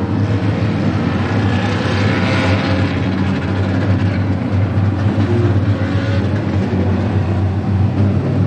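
Four-cylinder dirt-track race cars running around the oval together, their engines making a steady low drone.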